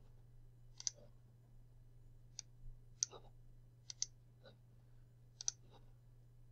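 Computer mouse buttons clicking: about seven faint, single, sharp clicks at irregular intervals, over a low steady hum.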